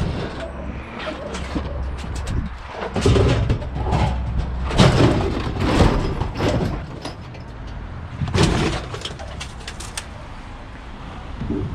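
Irregular clattering knocks and bangs of scrap being handled, with the loudest clatters about three, five and eight seconds in, over a steady low hum.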